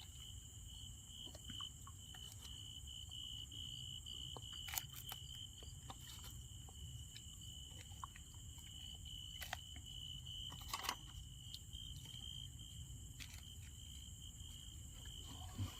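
A steady, high-pitched insect trill runs throughout. A few sharp clicks and crunches come from someone chewing crunchy food.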